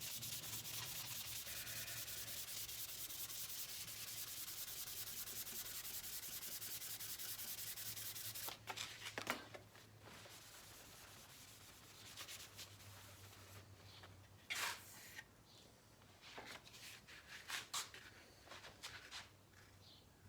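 Fine-grit sandpaper rubbed by hand over the clear coat of a painted motorcycle side cover in quick, steady strokes, flattening orange peel in the finish. The sanding stops about eight and a half seconds in, and a few brief rustles and light knocks follow.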